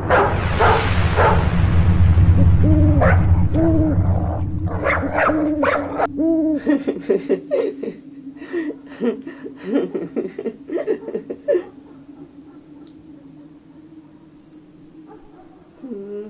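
Spooky night-time sound effects: a deep rumbling swell carrying short hooting calls, then a run of short barks and cries, settling after about twelve seconds to a steady high insect chirp over a low hum.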